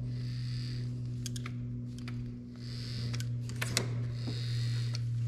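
Power antenna mast being pulled out of its housing with needle-nose pliers: three short scraping passes as it slides, with light clicks of metal tools and parts being handled. A steady low hum runs underneath.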